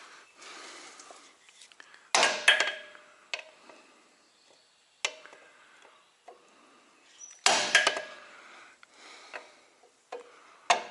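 Metal tools and parts clanking and knocking in a few separate bursts, some with a brief metallic ring; the loudest come about two seconds in and again about seven and a half seconds in.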